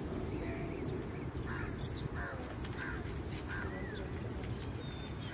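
A crow cawing several times in a row, the calls about two-thirds of a second apart, with a few thin bird chirps near the end, over a steady low background rumble.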